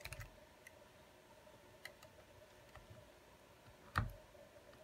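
Light clicks and taps of hands handling a phone's midframe and glue tube on a silicone repair mat, a few scattered clicks, with one louder knock about four seconds in.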